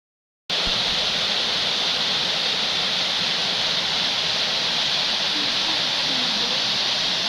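Steady rushing of a waterfall, beginning about half a second in.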